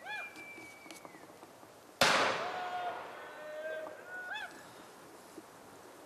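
A single gunshot about two seconds in, its echo dying away over the next couple of seconds. Hunting hounds bay before and after it in drawn-out, pitched cries.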